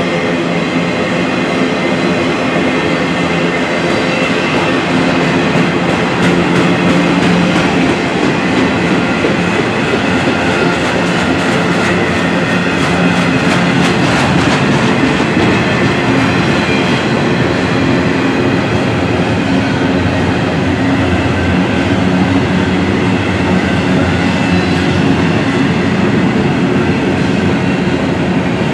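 Double-stack intermodal freight train's well cars rolling past: a loud, steady rumble of steel wheels on rail, with faint clicking of wheels over rail joints around the middle.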